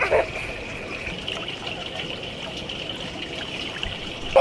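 Steady trickling and running water at a swimming pool.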